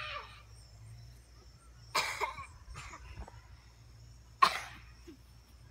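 Two short coughs from a person, about two and a half seconds apart; the second is the louder.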